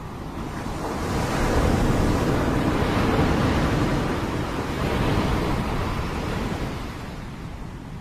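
Small waves breaking and washing up a pebble shore. The wash swells about a second in and slowly dies away toward the end.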